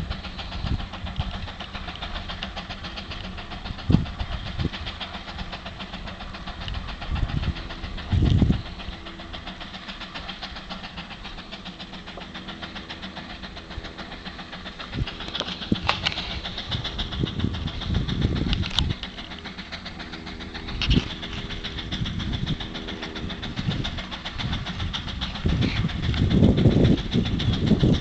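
A distant tractor engine running steadily under heavy load as it pulls a plough through the field, with several louder low rumbling bursts along the way.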